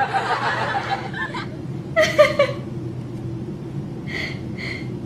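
A woman laughing: a run of quick chuckles, a louder burst of laughter about two seconds in, then two short laughs near the end.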